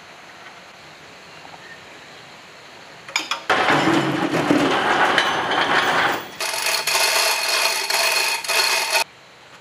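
Metal rattling and scraping from a manual chain hoist as heavy generator parts are moved on it. It starts suddenly after about three seconds of low background and changes about six seconds in to a rattle with steady ringing tones. It cuts off abruptly near the end.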